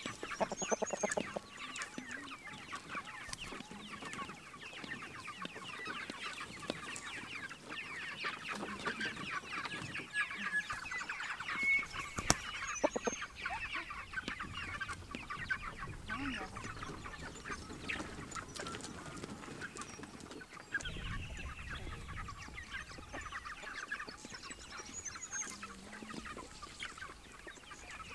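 A flock of young white meat chickens (broilers) calling continuously, a dense chorus of many short overlapping peeps and clucks.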